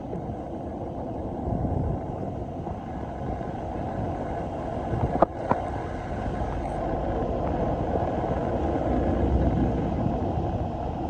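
A car driving, with steady low road and engine noise, and two sharp clicks about five seconds in.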